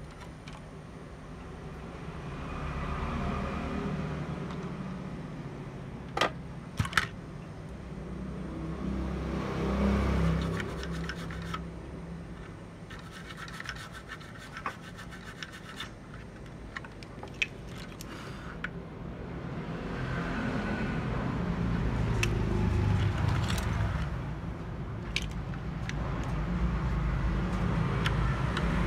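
Scraping and rubbing on a hard surface, with a few sharp clicks, over a low rushing noise that swells and fades several times.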